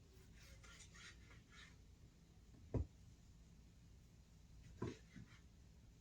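Knife knocking on a cutting board while a tomato is sliced: one sharp knock about three seconds in and a softer double knock near the end, over near-silent room tone.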